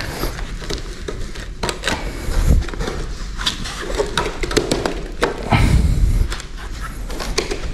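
A hand pressing and shifting a ceramic floor tile on its adhesive bed to seat and align it, with scattered small knocks and clicks and two duller thuds, about two and a half seconds in and about six seconds in.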